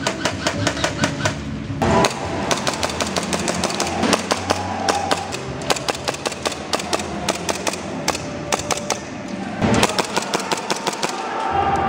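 Airsoft guns firing in rapid strings of sharp shots, with short pauses between bursts.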